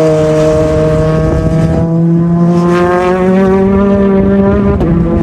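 JAF F4 formula racing car's engine running hard on track, its note held for several seconds and changing only slowly in pitch.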